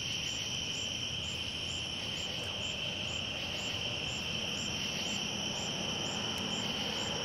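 Night chorus of crickets: a steady high trill with a regular chirping pulse about three times a second, over a faint low rumble.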